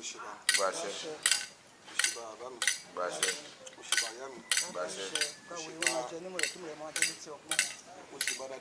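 Rhythmic metallic clinking, metal struck on metal at a steady pace of about one and a half strikes a second, with faint singing voices underneath.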